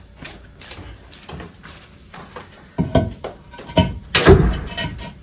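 A hollow concrete breeze block being set down on a concrete floor: a few knocks and scrapes in the second half, the loudest a heavy thud about four seconds in.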